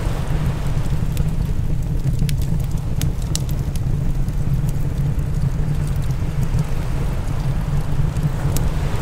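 Open fire crackling, with irregular sharp pops, over a steady low rumble.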